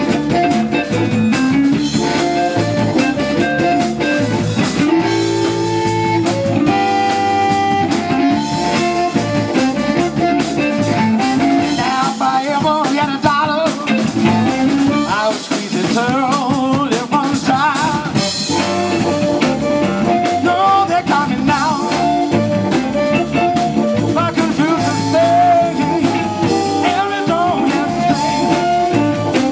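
Live blues band playing: amplified harmonica over electric guitar, electric bass and a drum kit, with a steady beat and bent, wavering lead notes.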